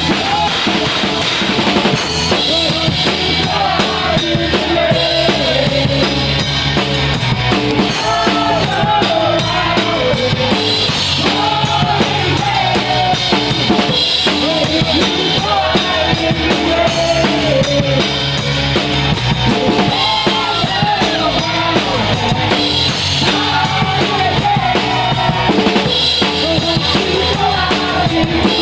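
Live rock band playing an instrumental passage, the drum kit loud and close with steady bass drum and snare hits under a wavering lead melody.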